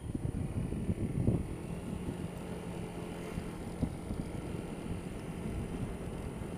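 Honda Dio scooter riding along, heard as wind buffeting the helmet-mounted microphone in a low, gusty rumble with the scooter's engine running faintly underneath. The noise jumps up suddenly at the start as the scooter picks up speed.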